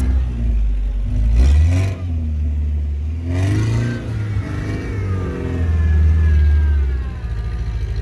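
Lada Niva's engine revving as it drives over sand, heard from inside the cabin, the revs swelling and dropping back.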